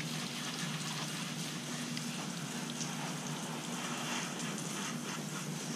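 Steady hiss of water spraying onto a motorcycle during washing, with a faint low hum underneath.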